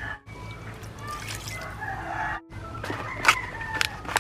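Roosters crowing and chickens clucking in the background, with a few sharp clicks near the end. The sound drops out briefly twice.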